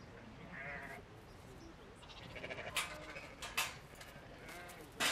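Sheep bleating several times, with a few sharp clicks in between.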